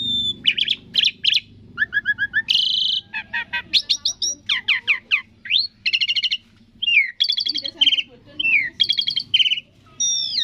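Asian pied starling (jalak suren) singing its varied song: quick series of chattering notes, rising and falling whistles and short trills, with hardly a pause.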